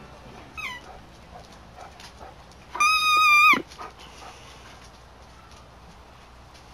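A dog biting a rubber squeaky ball: a short falling squeak, then about two seconds later a loud, steady high-pitched squeal held for nearly a second that drops in pitch as it ends.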